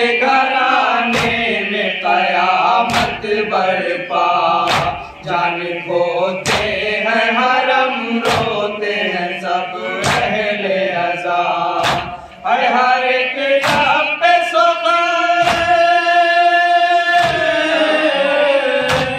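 Shia noha chanted by a male reciter into a microphone, with chest-beating (matam) strikes landing in time about every two seconds. A long note is held from about two-thirds of the way through.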